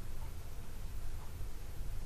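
Quiet room tone with a steady low hum and no distinct handling sounds.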